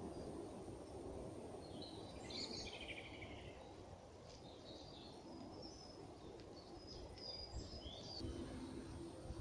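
Wild birds calling: a quick twittering trill about two seconds in, then scattered short high calls, over a steady low rumble.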